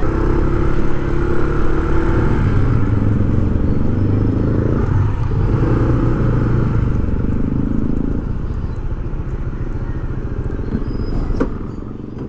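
A motor vehicle's engine running close by, its pitch stepping up and down as it speeds up and slows, over road noise. It eases off near the end.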